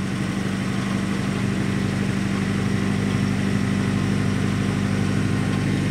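BMC 1.5 four-cylinder inboard boat engine idling steadily and smoothly at about 1000 rpm.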